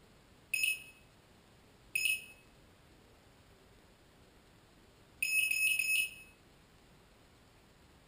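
Lotus T580 quadcopter's electronics beeping on one high tone: two short beeps about a second and a half apart, then a quick run of several beeps lasting about a second. The beeps belong to a fault in which the motors stop after a few seconds and then won't start; the uploader notes that the flight controller's LED goes out at the last beeps.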